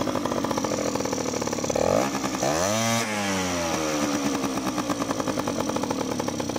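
Honda Dio 50 cc two-stroke scooter engine running with its air filter off. About two seconds in it revs up quickly, then the revs sink slowly back. Its idle will not settle: it runs either too high or too low, a fault the mechanic cannot trace.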